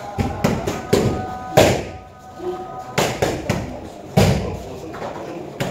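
Gloved punches and a kick landing on focus mitts: about seven sharp smacks at an uneven pace, the loudest about one and a half seconds in and again past four seconds, each ringing briefly in a large echoing room. Faint music plays underneath.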